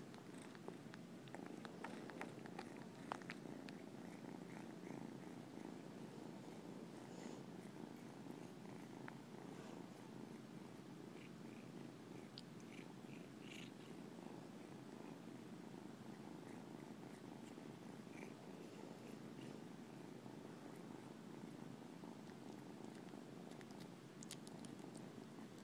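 Young kitten purring steadily while suckling on a finger, with faint clicking sucking sounds, mostly in the first few seconds.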